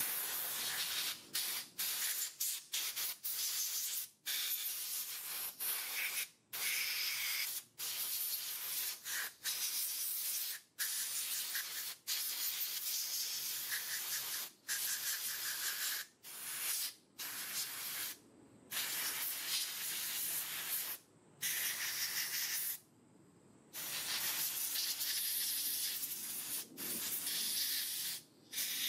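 Compressed-air blow gun hissing in repeated bursts with short pauses between, blowing carburetor cleaner out of a small-engine carburetor to dry it.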